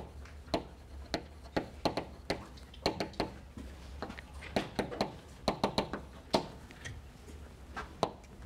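Chalk writing on a blackboard: a quick, irregular run of sharp taps and short scrapes as the chalk strikes and drags across the slate. A steady low hum runs underneath.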